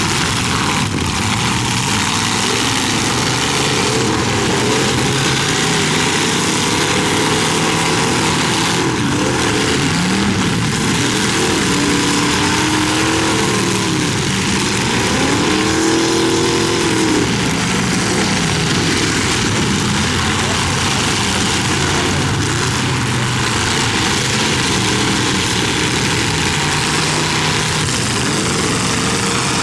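Demolition derby cars' engines revving up and down, several at once, over a dense wash of noise, with a few sharp bangs of cars colliding.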